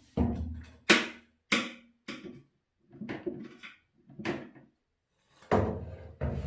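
About ten hard knocks and bangs at irregular intervals, the loudest about a second in and near the end: things being struck and shoved about to flush out a rat hiding in the room.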